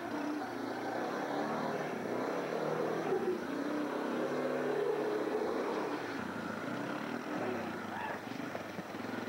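An old ATV (four-wheeler) engine revving up and easing off as it circles on wet pavement, its pitch rising and falling repeatedly.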